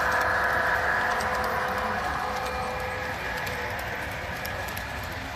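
Model freight train running on a layout: a steady whir of the locomotive motors and wheels on the track, with faint light clicking. It grows fainter after about two seconds.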